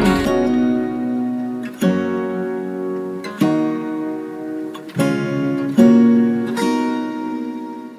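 Background music: an acoustic guitar playing slow strummed chords, five strikes each left to ring out. The song's closing bars fade away near the end.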